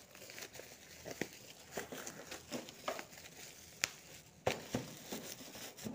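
Bubble wrap and plastic packaging crinkling as hands work at a parcel, with a few sharp clicks, the loudest about four seconds in.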